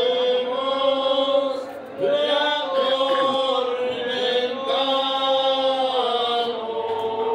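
Voices singing a slow religious hymn in long, held notes, with a short break about two seconds in before the next phrase.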